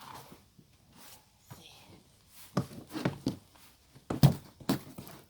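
Digging through soil in a bucket while harvesting potatoes: irregular rustles and knocks, with the loudest knock about four seconds in.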